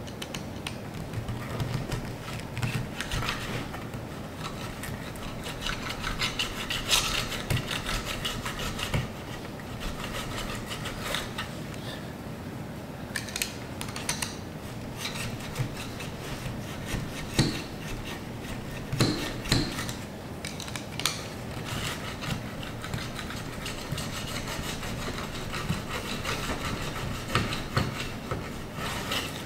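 Spline roller tool pressing spline and pet-resistant screen into the groove of a metal screen-door frame: an uneven rubbing, rasping noise in strokes, with scattered clicks and knocks.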